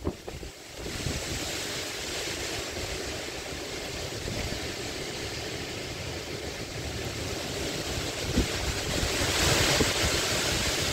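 Storm wind rushing through a large tree's autumn foliage, a steady gusting roar that sets in about a second in and swells louder near the end, with wind buffeting the microphone.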